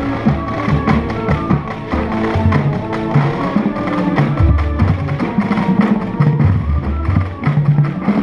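High school marching band playing: held wind and brass chords over drum and percussion strikes, with heavy low drum notes near the middle.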